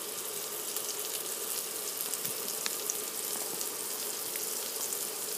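Hamburger patties frying in a pan on an induction cooktop: a steady sizzling hiss with many fine crackling pops.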